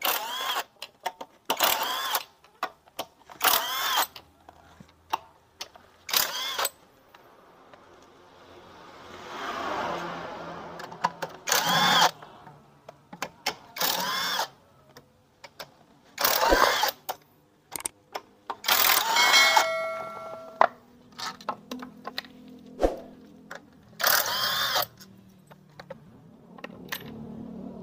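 T-handle 8 mm socket wrench working the bolts of a Yamaha Mio M3 125's CVT cover: a series of short, sharp metallic clicks and scrapes every couple of seconds, with a softer rushing scrape near the middle.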